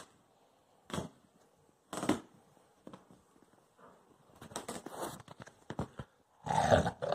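Puppy growling in short bursts while it worries a shredded stuffed toy. The loudest burst comes near the end.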